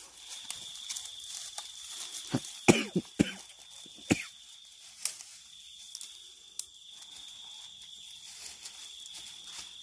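A handful of short sharp knocks and rustles, clustered about two and a half to three and a half seconds in with single ones after, over a steady high insect trill.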